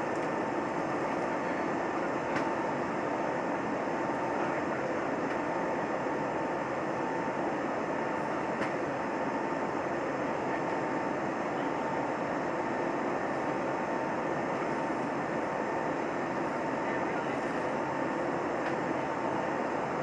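Steady cabin noise inside an Airbus A320neo in flight: an even rush of engine and airflow from the Pratt & Whitney geared turbofans, with a steady whining tone over it.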